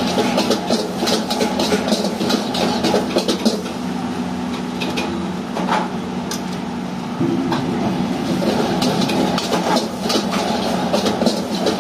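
Metal spatula scraping and clanking rapidly against a wok as fried rice is stir-fried over a gas burner, over a steady hum. The clanking thins out for a few seconds midway, then picks up again.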